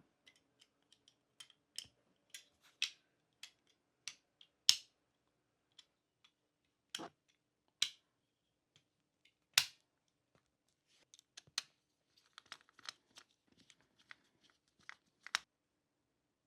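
Small parts of a 1:18 scale model car clicking and tapping as it is handled, with scattered single clicks, two louder knocks, and a quicker run of light clicks near the end.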